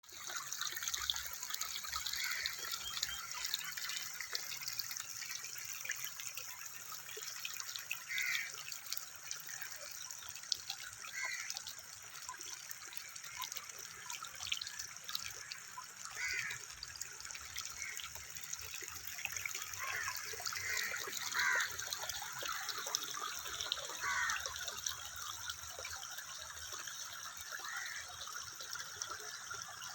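Water trickling steadily, with small bubbling plops every few seconds.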